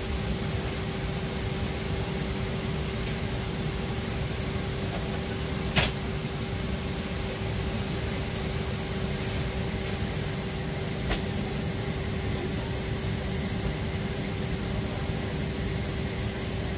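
Steady hum of a Boeing 767 cabin's air-conditioning at the gate, with one steady tone in it. There are two sharp clicks, about six and eleven seconds in.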